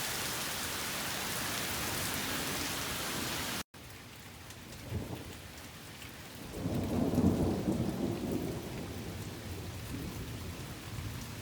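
Heavy rain hissing steadily; after an abrupt cut the rain is lighter, and a low rumble of thunder swells a little past the middle and fades over a few seconds.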